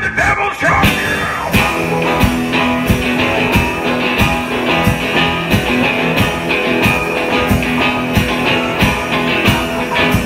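Live blues-rock band playing: harmonica over a drum kit beating a steady rhythm.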